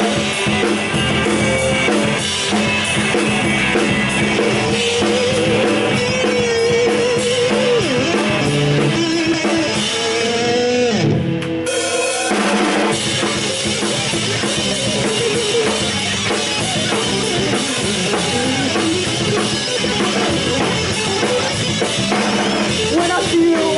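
Live rock band playing an instrumental passage on drum kit, electric bass and electric guitars. About halfway through the band briefly thins out with a falling slide, then comes back in full.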